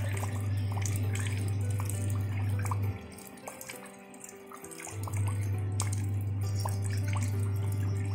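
Water trickling and dripping, with scattered small drip ticks, under calm background music. A loud, low held note in the music stops about three seconds in and comes back about five seconds in.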